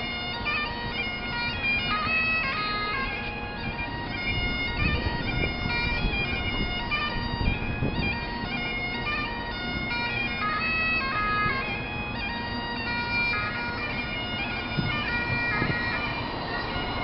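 Bagpipes playing a tune, the melody stepping from note to note over a steady drone.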